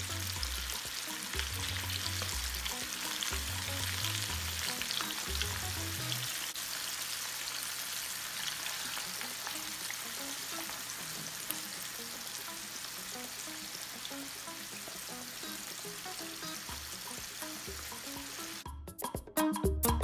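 Flour-coated red snapper pieces deep-frying in hot oil with onions and a garlic clove, a steady sizzle. Near the end it gives way to music.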